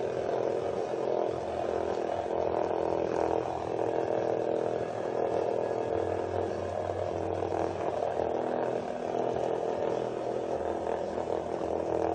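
Small vibrating bug toys, cheap Hexbug Nano knock-offs, buzzing steadily as their vibration motors run.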